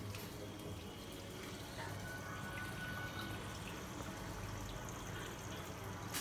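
Reef aquarium's water circulation: a steady trickling, splashing flow of seawater, with a low steady hum underneath.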